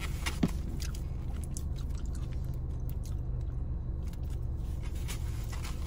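A person chewing food with short, soft mouth clicks, over a steady low hum inside a car. Near the end, a small plastic condiment packet is handled.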